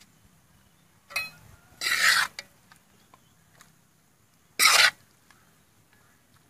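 Metal ladle scraping against a wok while scooping out stir-fried food: a short scrape about a second in, a longer, louder one around two seconds, and another near five seconds.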